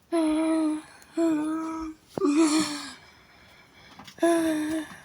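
Fire alarm horn sounding the temporal-three evacuation pattern: three steady buzzing tones about a second apart, a pause, then the next set of three starting about four seconds in. The system has been put into alarm by a smoke detector test.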